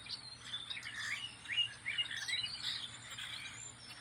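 Several birds singing and chirping at once from a tree: a busy mix of short chirps and quick rising and falling notes.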